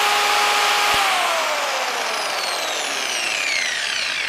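Electric rotary car polisher's motor whining steadily at full speed. About a second in there is a click as it is switched off, and the whine falls steadily in pitch as the motor and pad coast down.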